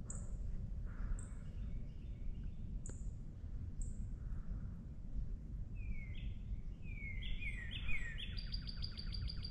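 Songbirds singing: a few short high chirps in the first few seconds, then from about six seconds a series of falling whistled notes that runs into a rapid trill near the end. Underneath is a steady low rumble of wind and handling noise on the microphone.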